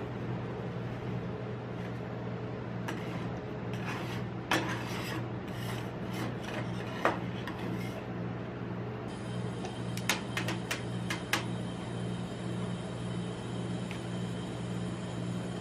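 Steel spatulas scraping and rubbing across a stainless steel ice-cream cold plate, rolling up and gathering frozen ice cream, with several sharp metal taps and clicks. A steady low machine hum runs underneath.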